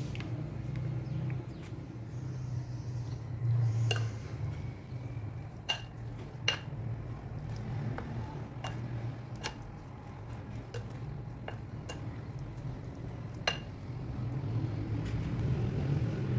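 A spoon clinking irregularly against a glass mixing bowl as raw chicken pieces are stirred through a powdered spice mix, about ten sharp clinks with a short ring. A steady low hum runs underneath.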